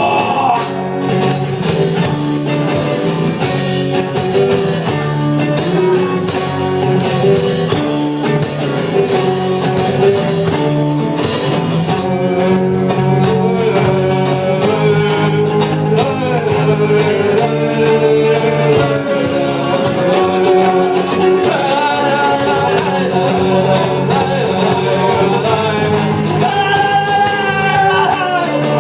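A band playing a song, in a stretch between choruses where no lyrics are sung.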